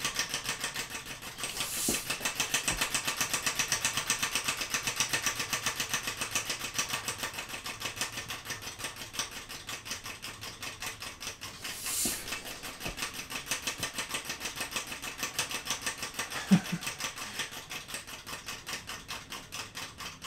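3D-printed compressed-air engine running slowly, with a fast, even rhythm of exhaust puffs and valve clicks, several a second, that grows quieter as the air pressure falls. Short bursts of hiss come about two and twelve seconds in as air is pumped into the tank. There is a single sharp knock late on.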